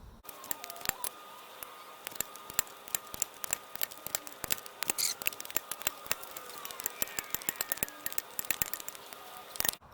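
Irregular run of sharp metallic clicks and clinks, several a second, from hand work on the dozer's idler and track parts.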